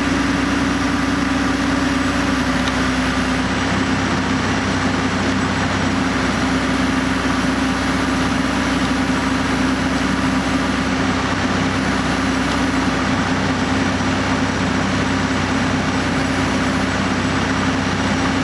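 Backhoe engine running steadily at an even pitch while its boom raises a load on a tow strap.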